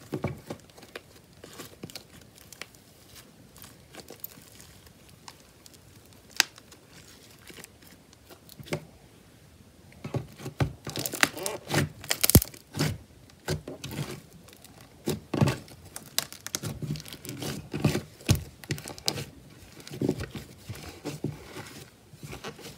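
Slime with modelling clay worked into it being kneaded, folded and pressed by hand, giving sticky squishing and crackling sounds. The sounds are sparse and quiet at first, then come thicker and louder from about halfway through.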